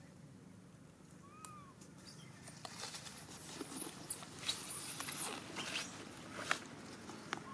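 Baby long-tailed macaque giving a run of shrill, high-pitched squeals from about three seconds in, over the rustle and scrape of dry leaves as the monkeys move about. There is a sharp tap near the end.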